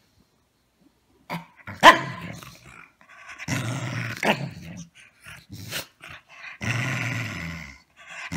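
A corgi growling in bouts, with a single sharp outburst about two seconds in.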